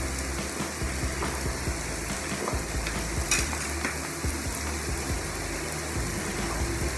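Pork belly sizzling as it grills, an even frying hiss with a light click about three seconds in.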